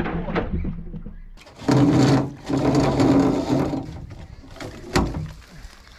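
212cc single-cylinder engine being pull-started by a rope on the starter spool, the handle having snapped off. It turns over with a steady mechanical running sound twice, the first time briefly and the second for about a second and a half. A sharp knock comes near the end.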